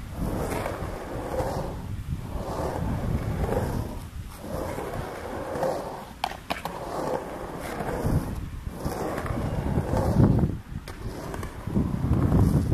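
Skateboard wheels rolling on concrete ramps, the rolling noise rising and falling every couple of seconds as the rider goes back and forth. A few sharp clacks about six seconds in, as the board meets the top of the ramp.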